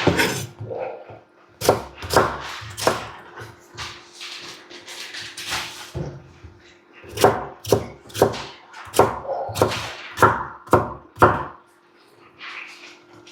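Kitchen knife chopping carrot and potato on a wooden cutting board. A few sharp knocks come in the first few seconds, then a steady run of chops at about two a second in the second half.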